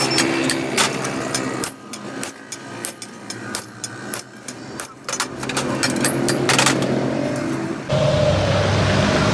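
Hammer blows on a steel bar being forged, irregular strikes with a metallic ring. About eight seconds in, a steady machine noise comes in.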